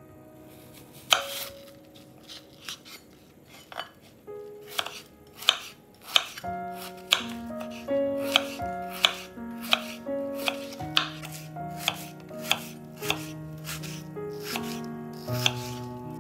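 Knife chopping on a cutting board in sharp, irregular strokes, roughly one or two a second, beginning about a second in, over soft piano background music.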